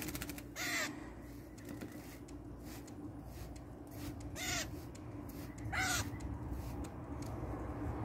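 A young grackle giving three short, harsh calls a few seconds apart, each a quick note that rises and falls in pitch.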